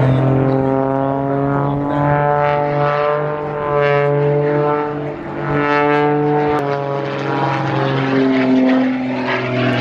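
Aerobatic propeller plane's piston engine and propeller running loud. The engine note rises and falls in pitch as the plane manoeuvres, with a brief dip about five seconds in and a sudden step in pitch a little after six seconds.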